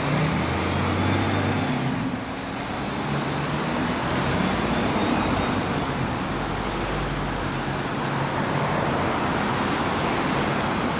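A vehicle engine running with steady road and traffic noise, heard from inside a moving vehicle. A low engine hum is strongest in the first couple of seconds.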